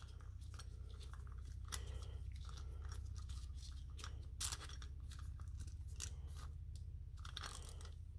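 A socket ratchet clicking in short, irregular runs as a deep socket screws the brass main jet into the carburetor body, over a low steady hum.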